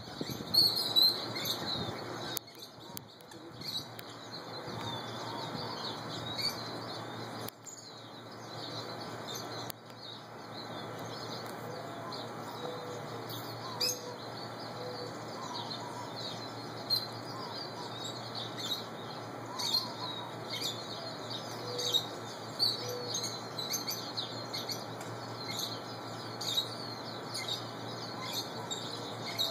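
Lovebirds chirping: a steady stream of short, high chirps, many overlapping, with some lower calls among them.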